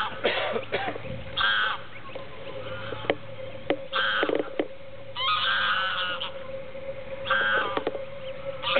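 Greylag geese and their goslings calling: short pitched calls repeated about once a second, with a few sharp clicks among them.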